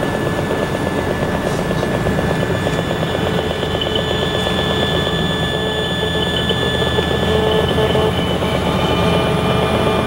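EMFields Acoustimeter RF meter's loudspeaker playing demodulated radio-frequency signals, the audible sign of nearby cell tower transmissions: a steady, rapidly pulsing electronic buzz with high held tones over it.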